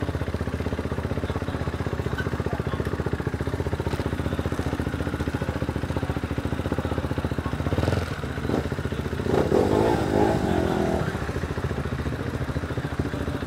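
KTM Duke's single-cylinder engine idling as the bike rolls slowly, with a brief louder burst of throttle about two-thirds of the way through.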